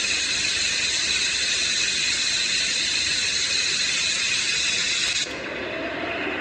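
White noise sleeping-aid machine playing a steady high hiss, which switches abruptly about five seconds in to a lower, duller steady noise setting.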